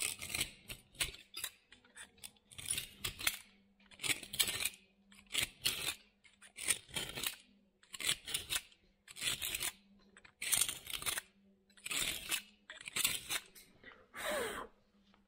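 Snap-off utility-knife blade scraping leftover tile adhesive out of the joint between porcelain floor tiles, in repeated short rasping strokes about one or two a second. The adhesive is a day old and still soft enough to cut out cleanly.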